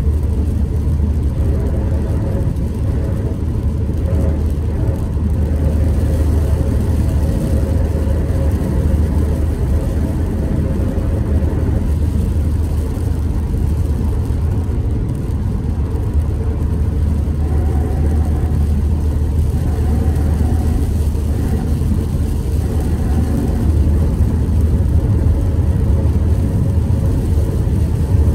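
Road noise heard inside a car driving on a wet highway: a steady low rumble of tyres and engine at cruising speed.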